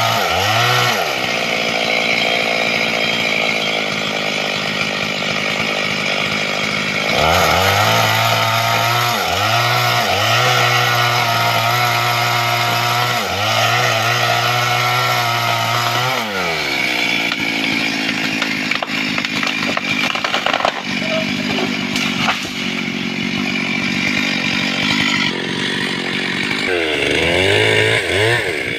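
Stihl MS 382 two-stroke chainsaw cutting through a tree trunk. The engine bogs and revs back up as the chain bites, its pitch dipping and recovering every couple of seconds, then holds a long steady high run in the middle. A few sharp cracks sound over it.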